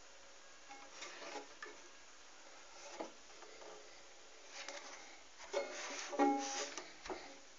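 Banjo being tried out: a few plucked notes and short strums in irregular bursts with pauses between them, the loudest group near the end.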